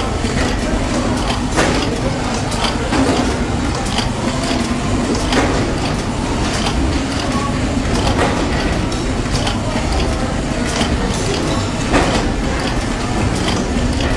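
Pneumatic pad printing machine cycling as it prints shoe insoles, its moving parts clacking about every second and a half over a steady mechanical hum.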